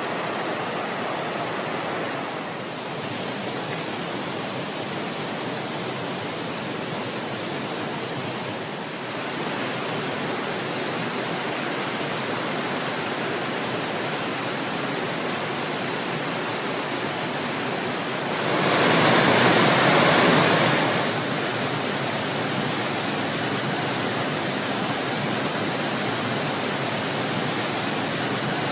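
Steady rush of a waterfall and stream, with a louder swell lasting about two seconds a little past the middle.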